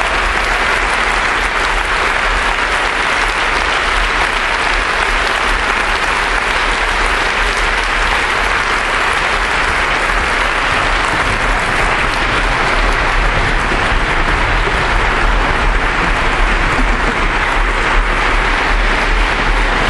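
Audience applauding steadily, growing a little louder about two-thirds of the way through.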